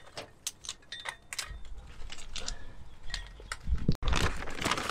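Light clicks and rattles of hands working the smoker's metal cabinet and fittings, then a heavy thump about four seconds in, followed by rough rubbing and handling noise.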